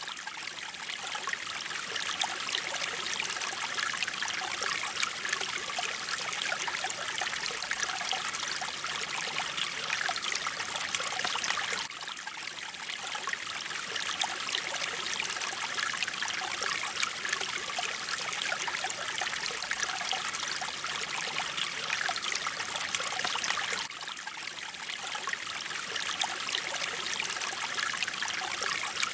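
Mountain stream water flowing steadily, a continuous rushing and trickling with most of its energy high up. The level dips briefly about every twelve seconds.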